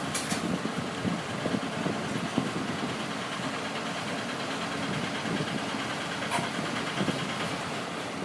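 Busy canteen ambience: a steady din with a machine-like hum and a few sharp clinks, one near the start and one about six seconds in.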